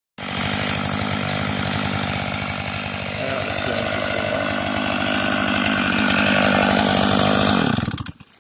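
Chainsaw running at high speed, getting a little louder over the run, then shutting off and winding down near the end.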